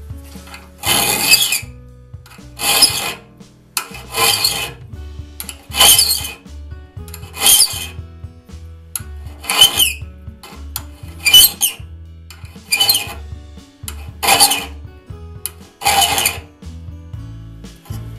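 Hand file rasping across the steel teeth of a one-man crosscut saw in slow, even strokes, about ten of them, each about half a second long and roughly one every second and a half, with a pause between strokes as the file comes back.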